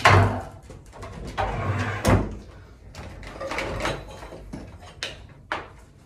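Plastic body of a Carpet Pro CPU-4T upright vacuum being handled and turned around on a wooden tabletop, with no motor running: a series of knocks, clunks and scrapes. The loudest knock comes right at the start, another about two seconds in, and a few short clicks near the end.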